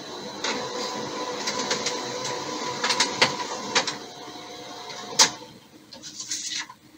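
Kyocera M5526 colour laser multifunction printer running as it prints a status page: a steady whir of its motors with repeated clicks and clacks, ending with a sharp clack about five seconds in. Then a short rustle of paper as the printed sheet is pulled from the output tray.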